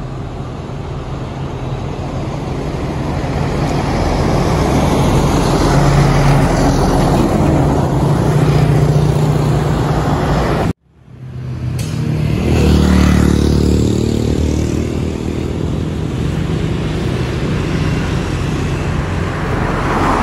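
Road traffic heard from a moving vehicle: steady engine and road noise, with cars going by. It breaks off sharply about halfway through, then returns with a vehicle engine rising and falling as it passes.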